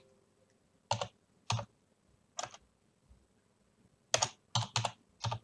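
Computer keyboard keys pressed one at a time as a command is typed: a few slow, separate keystrokes, then a quicker run of keystrokes near the end.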